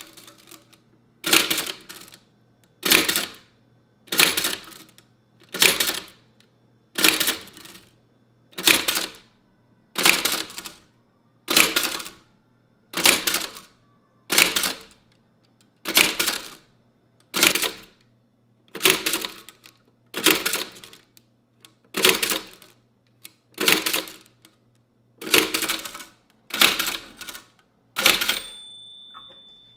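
Japanese typewriter striking characters one at a time, a heavy mechanical clack about every second and a half at an even pace. A short ringing tone sounds after the last stroke near the end.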